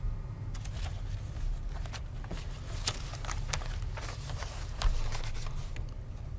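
Paper rustling and being handled at a table: a run of short crinkles and small knocks, with one louder knock about five seconds in. A steady low room hum runs under it.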